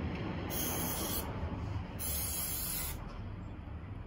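3M 90 high-strength aerosol spray adhesive hissing from the can in two bursts. The first comes about half a second in, and the second, slightly longer, about two seconds in.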